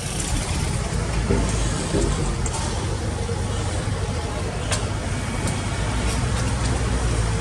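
Heavy diesel engine of an excavator or dump truck running steadily, with a few light clicks over the rumble.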